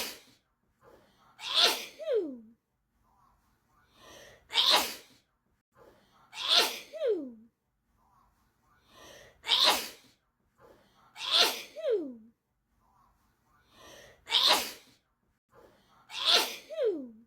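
A person sneezing in pairs, the same pair repeating about every five seconds, about eight sneezes in all. A short breath comes before each sneeze, and the second sneeze of each pair trails off with a falling pitch.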